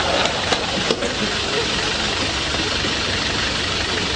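Black hackney taxi's diesel engine idling steadily, with a couple of light clicks from the rear door being opened about half a second and a second in.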